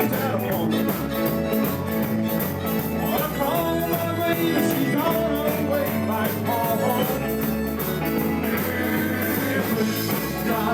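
Live band playing an up-tempo rock and roll number, pitched instruments over a bass line and a steady drum beat, with no sung words.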